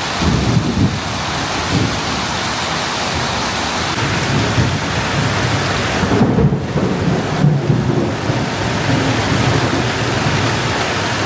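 Heavy rain pouring steadily, with an uneven low rumble underneath.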